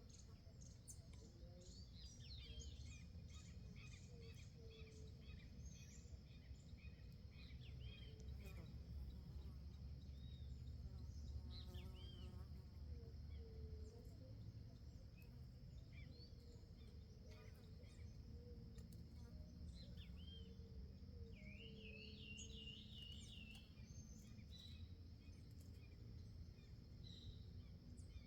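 Birds chirping in short, scattered calls, with one quick warbling trill about two-thirds of the way through. Underneath are a steady high drone and a low background rumble.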